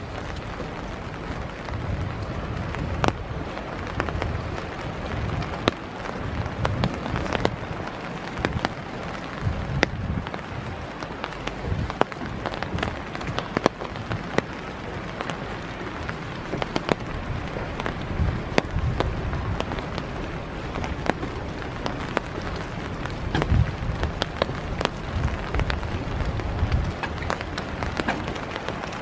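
Steady winter rain falling, with many sharp raindrop ticks scattered through it, over the low thuds of footsteps walking on a wet wooden boardwalk.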